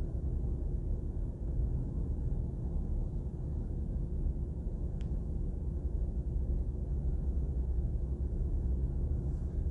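Steady low background rumble, with a single faint click about halfway through.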